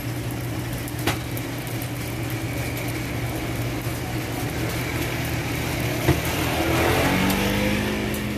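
Hotteok pancakes frying on a flat steel griddle, with a steady low hum underneath. A sharp click about a second in and a knock about six seconds in, then metal tongs working the griddle near the end.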